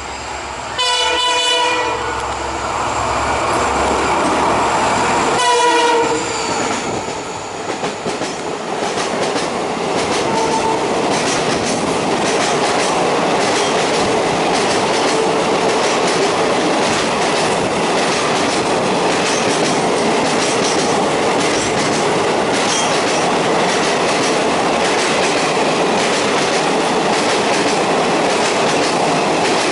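EMD WDP-4B diesel locomotive's horn blows twice, a blast about a second in and a shorter one about five seconds in. The locomotive and its express coaches then rush past at speed, with wheels clattering steadily over the rail joints.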